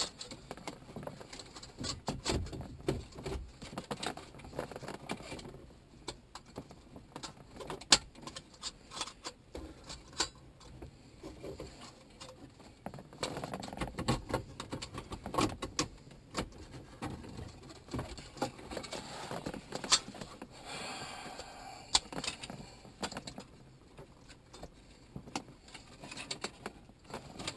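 Hands working stereo install parts into a car dashboard: irregular plastic clicks, knocks and rattles, with a few sharper snaps.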